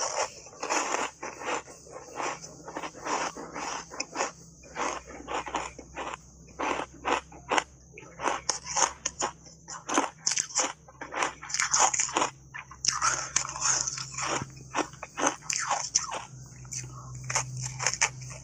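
Refrozen ice coated in matcha powder being bitten and chewed: a continuous run of sharp crunches, about two or three a second.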